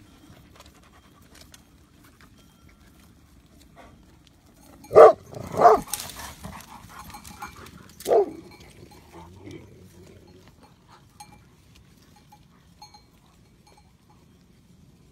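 Large livestock guardian dog barking: three loud barks, two close together about five seconds in and a third about two seconds later.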